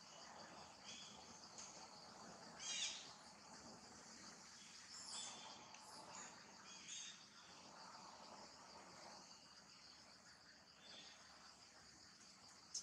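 Faint, steady drone of insects, with a few brief calls over it; the loudest comes about three seconds in.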